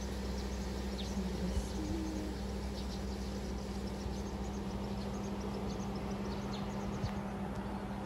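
Outdoor morning ambience: a steady low hum with faint, scattered high chirping over it.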